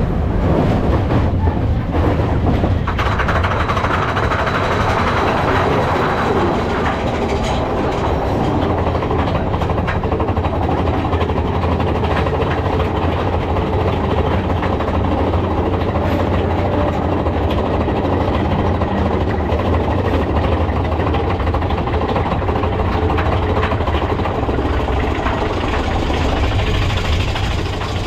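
Big Thunder Mountain Railroad mine-train roller coaster running along its track, heard from on board: a steady, loud rumble and rattle of the cars on the rails.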